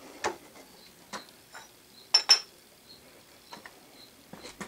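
Sharp metal clinks and knocks as a freshly milled aluminum vise casting is handled and lifted out of a steel milling-machine vise. The loudest is a quick pair of clinks about two seconds in.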